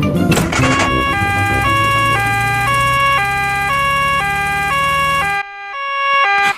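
Cartoon two-tone "nee-naw" ambulance siren, switching between its two pitches about twice a second, over a low engine hum that cuts off suddenly about five seconds in while the siren keeps sounding. A short noisy rush comes before the siren starts, about a second in.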